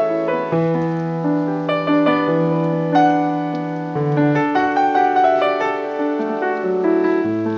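Calm background piano music: a gentle melody of held notes over sustained bass notes.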